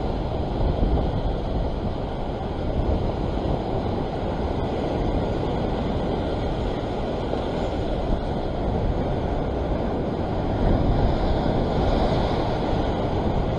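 Ocean surf churning and washing against rocks, with wind buffeting the microphone: a steady rushing noise that swells a little near the end.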